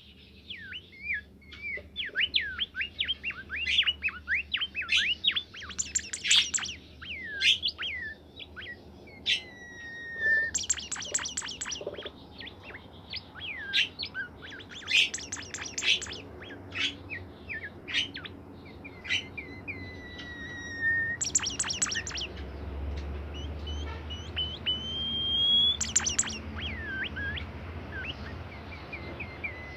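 A bimoli songbird singing without pause: rapid chirps and slurred whistles, long drawn whistled notes, and harsh rasping bursts mixed in every few seconds.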